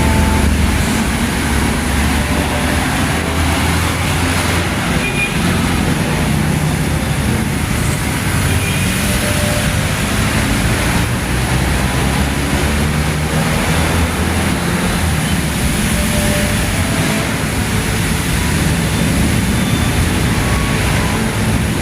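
Steady road noise of a vehicle driving on a rain-wet highway: a low engine drone that rises and falls a little in pitch under a constant hiss of tyres and spray.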